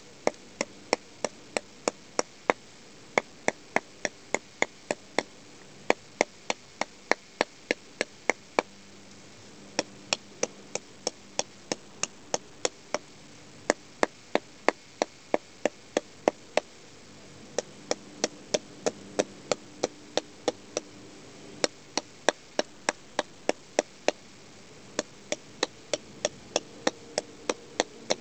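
Ovecka bushcraft knife chopping into a black locust twig: sharp wooden chops, about three a second, in runs of a few seconds with short pauses between.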